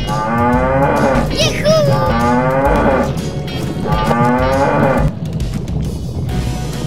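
Cattle mooing three times, each moo falling in pitch, over background music, with a short high rising squeak between the first two moos.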